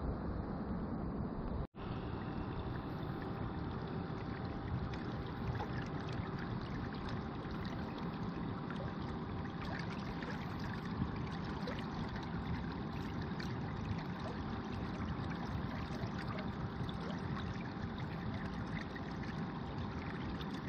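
Water rushing and splashing steadily along the hull of a small inflatable boat under way on an electric trolling motor, with a faint steady whine. The sound cuts out briefly near the start.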